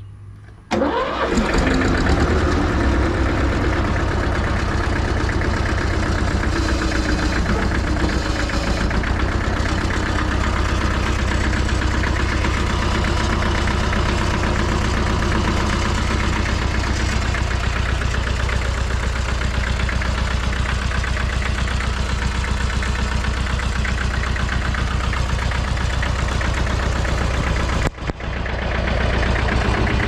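Mitsubishi D2000 compact tractor's diesel engine starts about a second in and then runs steadily at idle. It breaks off for a moment near the end and comes back.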